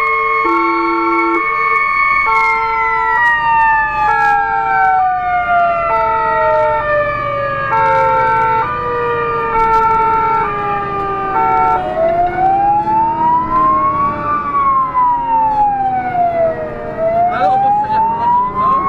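Fire engine sirens on an emergency run: a two-tone hi-lo siren alternating between two pitches, over a held tone that slowly slides down in pitch. About twelve seconds in, the two-tone stops and a slow wail takes over, rising and falling.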